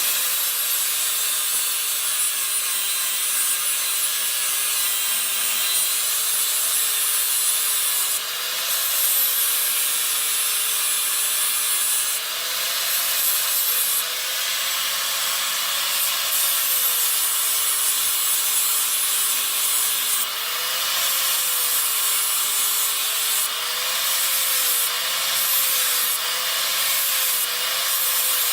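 Electric grinder grinding down metal, a steady hiss over the motor's whine, which sags now and then as the wheel bites and then picks up again.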